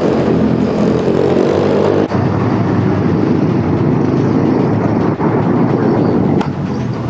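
Pit bike engine running hard at speed, loud and continuous, its pitch wavering slightly as the throttle changes.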